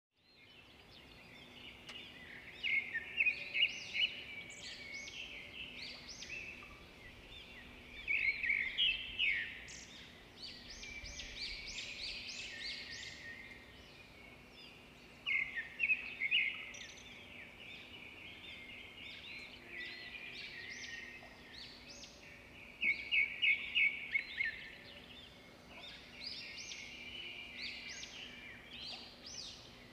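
Small birds chirping and twittering in clusters of quick high calls every few seconds, over steady background noise.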